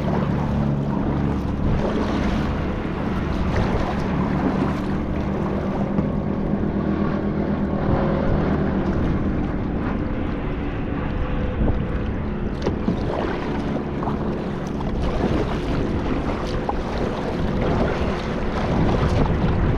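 A kayak underway while trolling on a lake: steady water and wind noise on the microphone, with a low hum of the kayak's drive and occasional light ticks.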